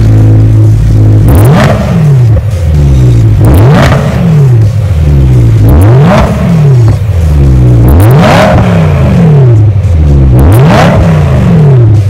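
BMW E90 M3's 4.0-litre V8 blipped five times from idle through an ARMYTRIX valvetronic axle-back muffler with its exhaust valves open. Each rev rises quickly and falls back more slowly to idle, about every two seconds.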